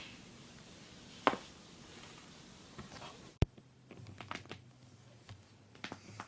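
Joints cracking during chiropractic adjustments: a loud sharp crack about a second in and another past the middle, then a run of quieter pops and clicks.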